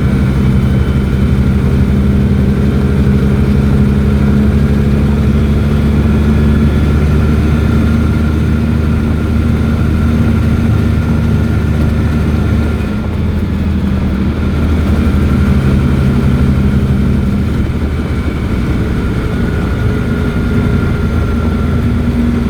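Invacar invalid carriage's small engine running under way, a steady, loud buzzing note whose pitch shifts a little a few times as the car's speed changes.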